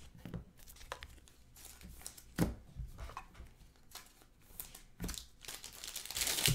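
Trading cards being slid off a stack and set down on a table, with scattered light taps and a sharper tap about two seconds in, then foil pack wrappers crinkling loudly near the end.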